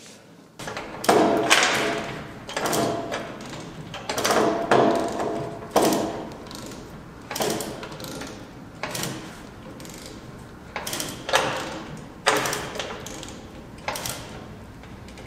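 Irregular metal-on-metal clanks and knocks, roughly one a second, each ringing briefly as it dies away.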